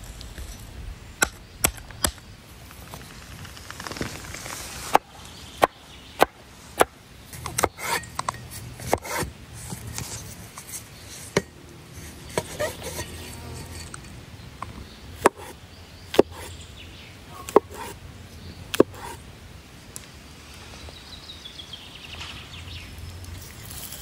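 A large knife chopping on a wooden cutting board, slicing button mushrooms: sharp single knocks at irregular intervals, often about a second apart, over a low steady background rumble.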